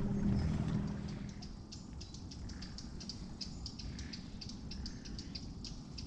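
A small boat's motor runs with a low steady hum and stops about a second in. After that, quick high-pitched ticks or chirps repeat irregularly, about six a second.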